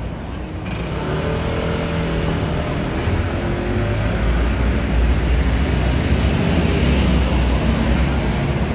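Street traffic: a motor vehicle's engine and tyres passing close, growing louder from about a second in and loudest a couple of seconds before the end.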